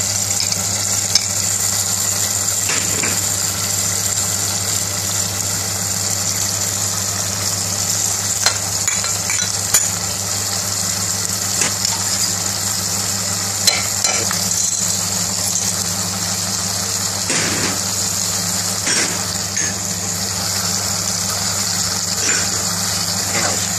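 Chicken, tomato and vegetables sizzling in a stainless steel saucepan, a steady hiss, with a few sharp clinks of utensils against the pan. A steady low hum runs underneath.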